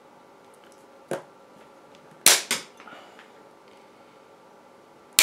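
Side cutters snipping the unwanted arms off a plastic servo horn: sharp snaps, a smaller one about a second in, a loud pair a little after two seconds, and another right at the end.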